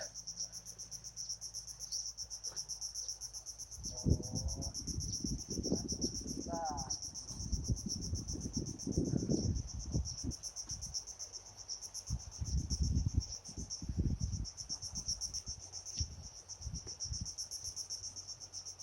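Insects chirring steadily throughout, a high-pitched, rapidly pulsing drone. From about four seconds in, irregular low thuds and rustles of handling or movement join it.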